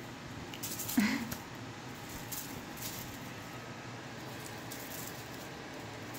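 Kittens batting at a feather wand toy on a fluffy rug: light rustling and scratchy patters of paws and feathers over a steady hiss, with one brief voice-like sound about a second in.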